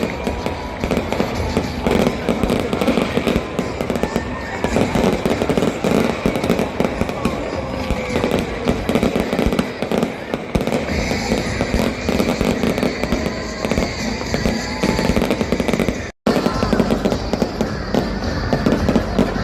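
Fireworks display: a dense, continuous barrage of bangs and crackles, with some whistles gliding in pitch among them. The sound cuts out for a moment about sixteen seconds in.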